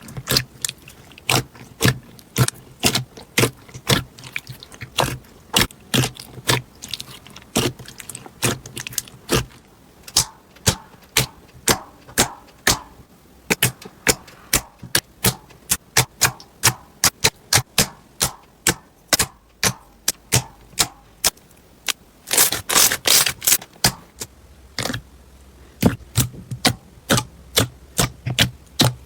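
Slime being pressed and played with, giving a steady string of sharp popping clicks, about two or three a second, with a quick dense run of them about three quarters of the way through.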